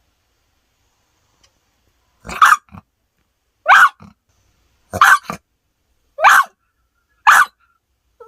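A dog barking: five sharp single barks, about one every second and a bit, each sliding upward in pitch, after a couple of seconds of quiet.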